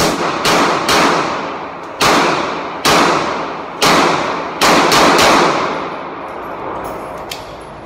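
Sig Sauer P320 pistol fired about nine times in an indoor range, each shot followed by an echoing tail. The shots come roughly a second apart, with a quick string of three about five seconds in, then stop.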